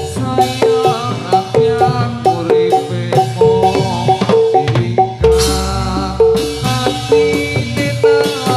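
Gamelan music for a jathilan dance, played loud through a sound system: metallophones strike a repeating pattern of notes about twice a second over drumming. About five seconds in there is a deep low stroke that rings for around a second.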